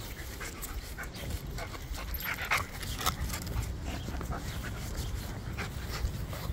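A dog panting in quick, rhythmic breaths.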